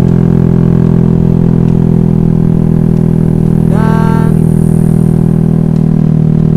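Honda Vario scooter's single-cylinder engine running at a steady speed under way. About four seconds in, a brief held tone, rising at its start, sounds over it for about half a second.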